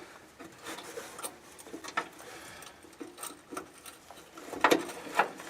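Scattered light clicks and taps of hand tools and a wire terminal as a ground wire is fitted under the engine computer's mounting bolt, with a few sharper knocks about two seconds in and near the end.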